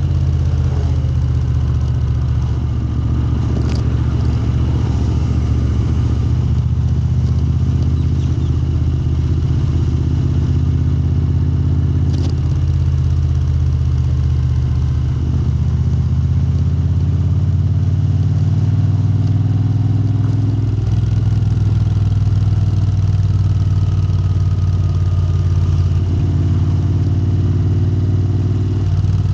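Moto Guzzi transverse V-twin running through Lafranconi exhausts, holding a steady pitch with small slow rises and falls in revs. Two brief sharp ticks come through about four and twelve seconds in.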